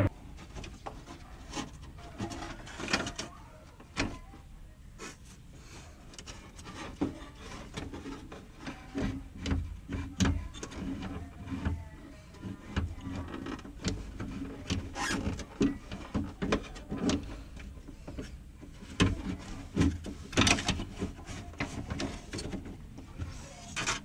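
Irregular clicks, taps and light knocks from hands working on the metal and plastic lock linkage inside a BMW E36 front door cavity, with handling noise close to the microphone.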